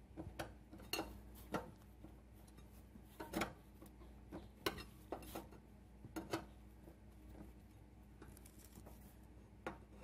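Steel wheel hub of a lawn tractor's wheel clicking and knocking against its dry, ungreased axle as it is worked back and forth to get it off: irregular metallic clinks, a dozen or so.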